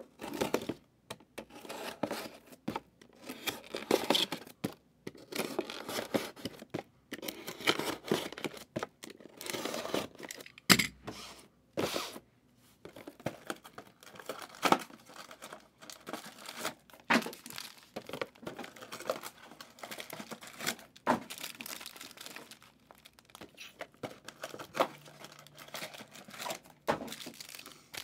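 Trading card pack wrappers from 2023 Prizm football Mega boxes being torn open and crinkled by hand, in a long, irregular string of rips and crackles.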